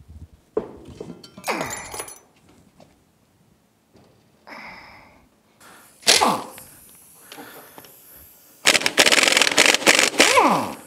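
Air impact wrench hammering on an oil-gallery cap plug in an outboard engine block, loosening it. The tool gives a short burst about six seconds in. Near the end comes about two seconds of loud, rapid hammering that winds down with a falling whine. A few metal knocks and short bursts come in the first couple of seconds.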